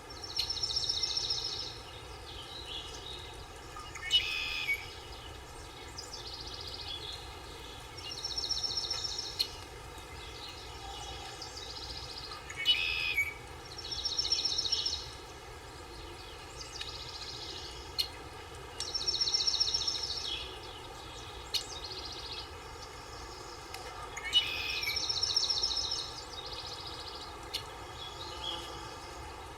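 Forest ambience. A bird repeats a short, high, rapid trill of about a second roughly every five to six seconds, with sharper chirps from other birds between the trills, over a steady background hiss.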